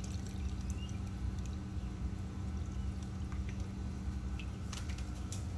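Water pouring and dripping as a live-fish shipping bag is opened and emptied, with a few small splashes and clicks, over a steady low hum.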